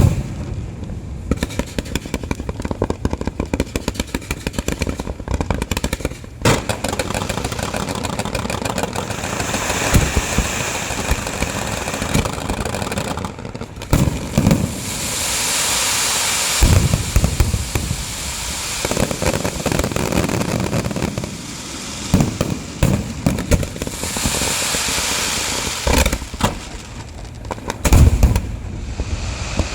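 Fireworks going off: rapid crackling pops, stretches of hissing crackle, and a few heavy booms.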